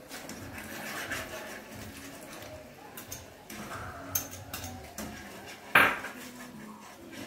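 Kitchen utensils clinking and scraping in a metal frying pan as a cornstarch slurry is poured from a glass bowl and stirred into a simmering sauce to thicken it. A sharp clink stands out about six seconds in.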